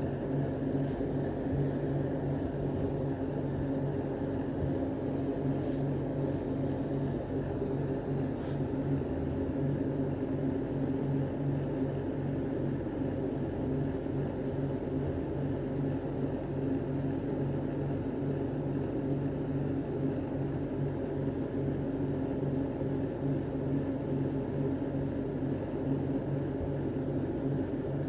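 A steady low mechanical hum with a constant pitch, unchanging throughout.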